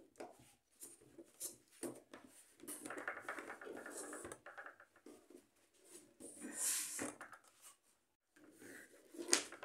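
Faint handling noise of a cardboard cake board and a plastic gelatin mould: soft rubbing and light knocks as the board is pressed on and the mould is turned over and lifted, with one sharp click near the end.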